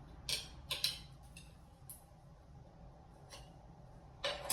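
Steel tire irons clicking and scraping against a spoked dirt bike rim as the tire bead is levered on in small bites: a few sharp clicks near the start and a longer scrape near the end, over a low steady hum.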